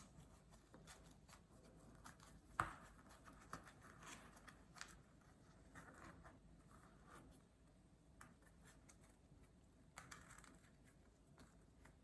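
Near silence with faint rustles and small clicks of toy packaging being handled, and one sharper click about two and a half seconds in.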